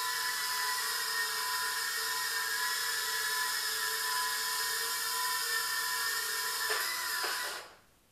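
Eachine Turbine QX70 micro quadcopter's tiny brushed motors and propellers giving a steady high-pitched whine in flight. The pitch wavers briefly near the end and the motors cut off as the quad comes down on the floor.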